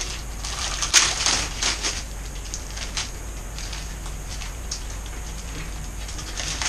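Scattered clicks and crinkles of things being handled on the work table, loudest about a second in, over a low steady hum.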